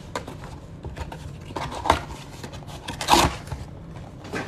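Cardboard trading-card blaster box being opened and handled by hand: scraping and rustling of the card stock, with two louder scrapes about two and three seconds in.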